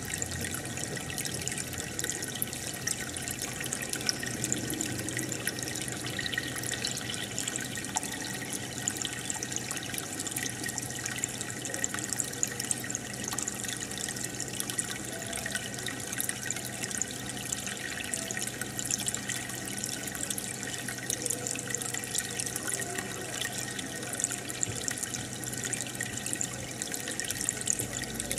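Aquarium air bubbler and filter running: steady bubbling and trickling water with a faint, steady low hum from the pump.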